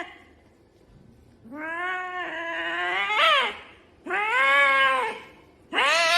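Angry cat yowling: three long, drawn-out calls, the first starting about a second and a half in and rising in pitch near its end.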